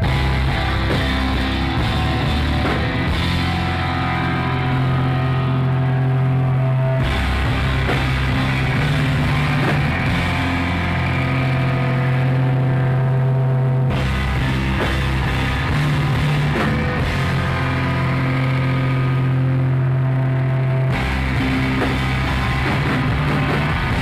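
Live emo rock band playing loudly: electric guitar and a full drum kit, recorded through a cheap phone microphone. The full band comes in right at the start after a brief quieter moment, and the song's pattern repeats about every seven seconds.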